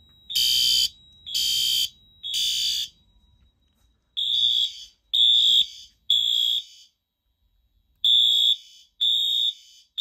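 Fire alarm horns sounding in the temporal-3 pattern: three half-second blasts, a pause, then three more, three groups in all. The devices code themselves to temporal-3 although the panel is set to continuous. From about four seconds in, the horn heard close up is a Fenwal (Wheelock) MT-24-LSM horn-strobe, with a different tone from the first group.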